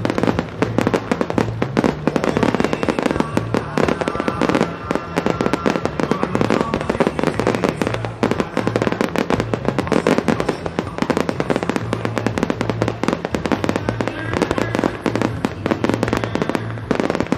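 Fireworks display with many rapid bursts and crackles, over music playing through loudspeakers.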